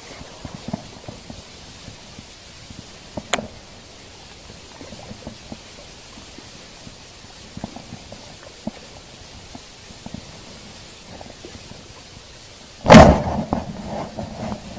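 Faint rustling and soft clicks as a fishing rod and reel are handled, with a sharp click about three seconds in and a loud thump near the end.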